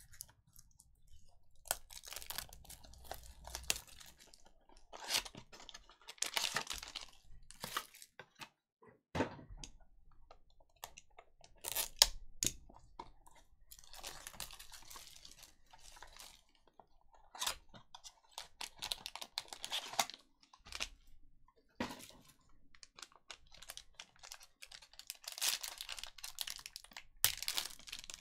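Plastic shrink-wrap being torn and crinkled off a sealed trading-card box, then the cardboard box being handled and opened, in irregular crackling bursts with a few sharp snaps. Near the end a foil card pack crinkles in the hands.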